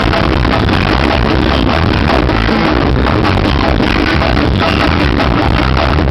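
Music blasting at high volume from a competition car sound system, with heavy bass and a dense mix that stays loud throughout.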